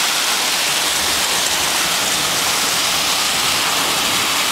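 Heavy rain mixed with hail pouring down in a steady, dense hiss of countless impacts.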